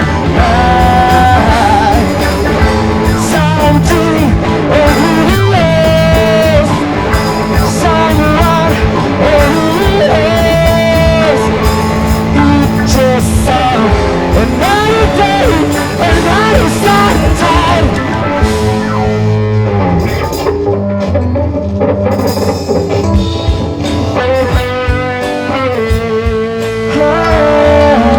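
Rock band playing live: electric guitar, drum kit and singing, loud throughout. The sound thins out briefly about twenty seconds in, then the full band returns.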